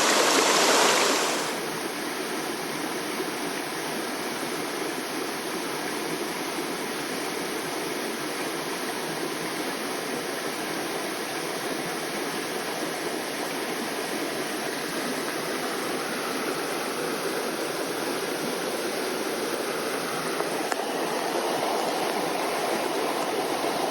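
Mountain stream rushing steadily, with a louder burst of water noise for the first second or so before it settles to an even rush.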